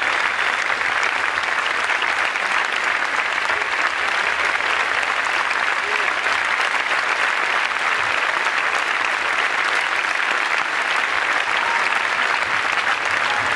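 Large crowd applauding: a steady, continuous clapping.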